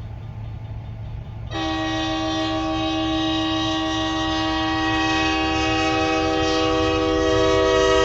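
A multi-tone horn, like a train's air horn, sounds one long steady chord from about a second and a half in, growing slightly louder, over a low rumble.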